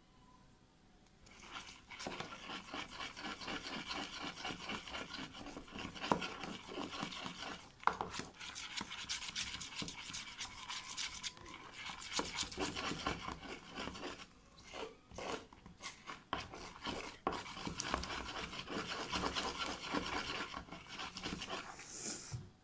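A utensil stirring and scraping slime mixture in a plastic tub: a rapid, continuous scraping rub that starts about a second and a half in, with a few short breaks near the middle.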